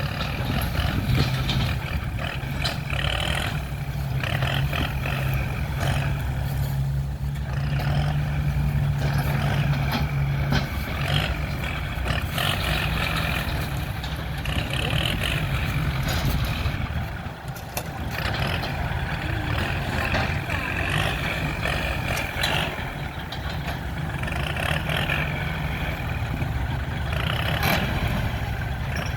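Heavy diesel earthmoving machinery running steadily, with a low engine drone that is strongest for the first ten seconds or so and dips briefly a little past halfway.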